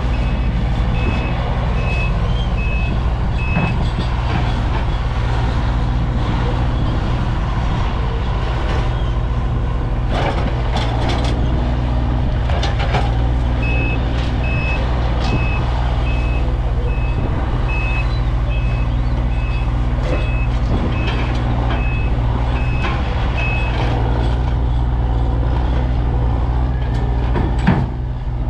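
Diesel tracked skid steer (Takeuchi TL12) working under load, its engine running steadily while its reversing alarm beeps about once a second in two spells, as it backs up. A few knocks partway through and a sharp thump near the end.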